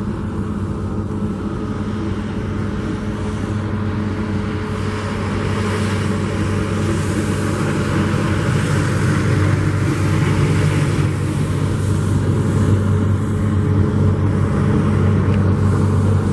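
A motor vehicle's engine running steadily, growing gradually louder over the stretch.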